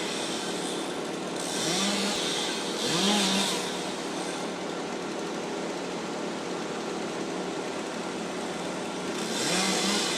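Chainsaw running in bursts. The engine revs up about two and three seconds in and again near the end, with steadier running in between.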